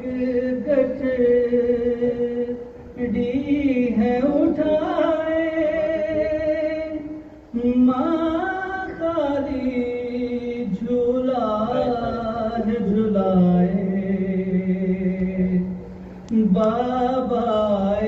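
A man's voice chanting an Urdu soz-salaam lament in long, drawn-out notes that bend and slide, with a few short breaks between phrases.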